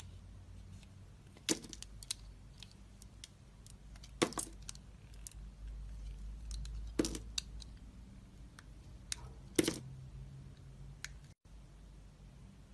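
A blade cutting into a bar of soap: four crisp cracking cuts about two and a half seconds apart, with lighter scraping ticks between them.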